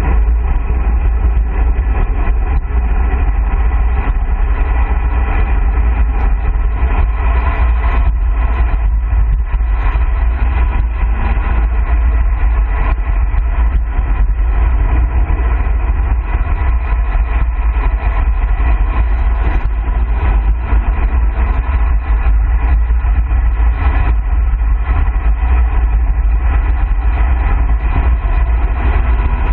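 Steady rush of wind on the microphone and tyre noise from a road bike descending fast, at about 40 to 57 km/h, with a heavy low rumble from the wind buffeting.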